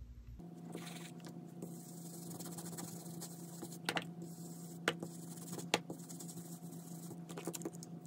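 Foam ink blending brush dabbed on a Distress ink pad and rubbed in small circles over a stencil on paper: a faint scratchy brushing with a few sharper taps about four, five and six seconds in, over a steady low hum.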